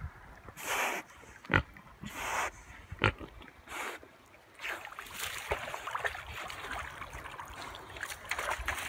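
A swimming pig blowing short, noisy breaths through its snout, about five in the first four seconds. Then water splashing and sloshing as the pig wades out of the river onto the bank.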